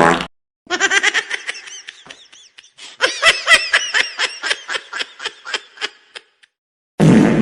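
High-pitched, rapid cartoonish laughter sound effect in two runs of quick pulses, the second run longer. Near the end a loud booming hit starts and rings on.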